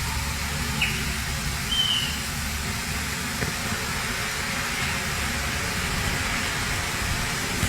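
Steady rushing noise with a low rumble underneath, like wind or traffic outdoors during a storm. Two or three brief high chirps come in the first two seconds.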